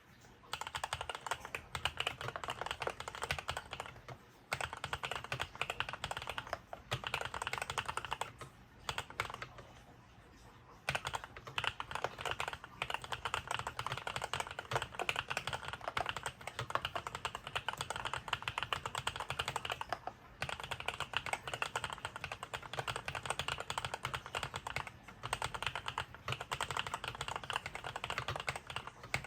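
Continuous fast typing on a Monsgeek M5 full-size mechanical keyboard, taped once, its stock foam swapped for compressed Thinsulate: a dense run of key clacks with a few short pauses and a longer lull around the middle.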